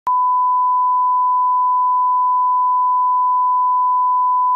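Broadcast line-up test tone played with colour bars: a single steady, unbroken pure beep at a constant level. It is the reference tone used to set audio levels at the head of a TV commercial tape.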